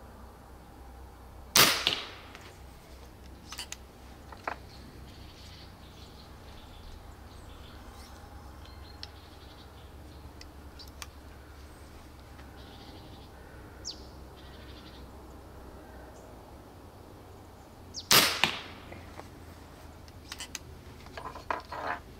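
Two shots from an air arrow launcher (an airgun limited to 7.5 joules with an arrow launch tube) firing light arrows, each a sharp crack with a short tail, about sixteen seconds apart. Faint ticks and a few small clicks from handling the gun follow near the end.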